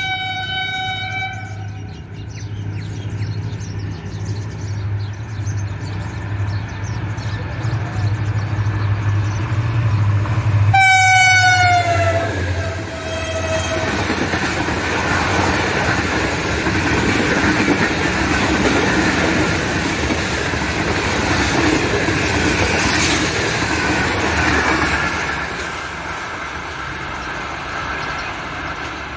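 Pakistan Railways HGMU-30 diesel locomotive passing at high speed: a short horn blast, then about eleven seconds in a longer blast whose pitch drops as the locomotive goes by, over a low engine drone. The rumble and clatter of the express's passenger coaches rushing past follow and ease off near the end.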